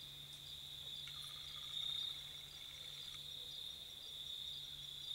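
Insect chorus, chiefly crickets: a steady high trill that swells louder about two seconds in, over a fainter, faster, evenly spaced chirping.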